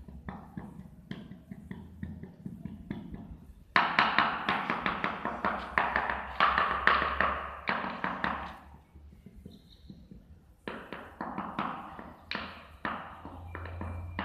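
A small mason's trowel tapping and scraping against floor tiles and mortar along a wall edge. It makes scattered light taps, then a louder run of quick scraping strokes about four seconds in that stops about nine seconds in, then taps again.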